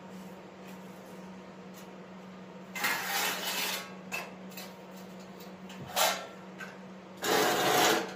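A rusted steel mower deck and a flat sheet scraped and dragged across a concrete floor: three bursts of scraping, the last and longest near the end. A steady low hum runs underneath.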